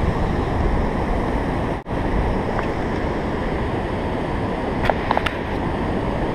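Steady rush of river water pouring over the Fairmount Dam on the Schuylkill River, with a few short clicks about five seconds in.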